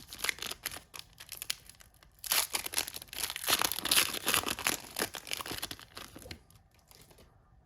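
Foil trading-card pack wrapper being torn open and crinkled in the hands, an irregular crackling rustle that dies away near the end.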